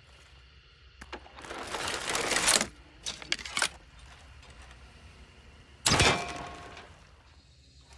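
Crossbow being readied and shot: a click, a rising scraping draw and a few clicks, then about six seconds in a sudden sharp release that rings away over a second or so.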